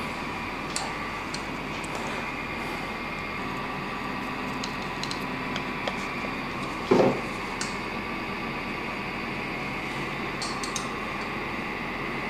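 Steady electrical hum and hiss of workshop room tone, with faint light clicks of small metal parts, the cylinder-head nuts and studs, being handled and one brief louder knock about seven seconds in.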